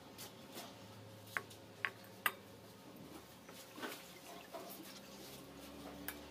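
Faint splashing and rubbing as raw chicken is washed by hand in a basin of water, with three short, sharp, high clicks about half a second apart in the first half.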